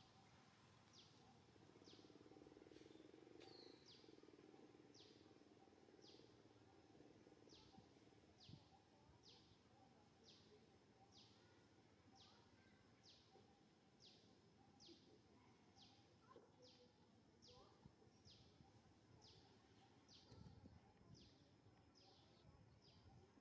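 Near silence with faint, regular chirping: a short high note falling in pitch, repeated about three times every two seconds.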